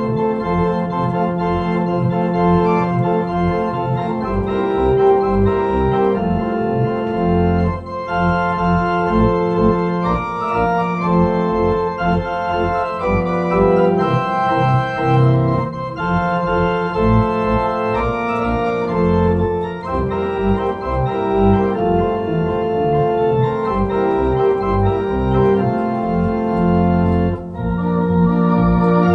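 Home console organ playing a medley of military tunes: full sustained chords over a deep bass line, with short breaks between phrases about 8 seconds in and again near the end.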